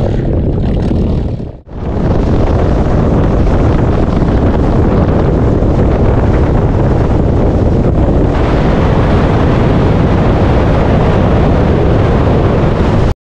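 Wind buffeting the microphone on a boat under way, with the boat's motor running underneath. The sound drops out briefly about a second and a half in and cuts off abruptly near the end.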